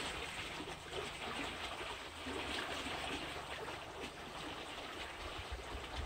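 Canal water flowing steadily, a continuous rushing trickle.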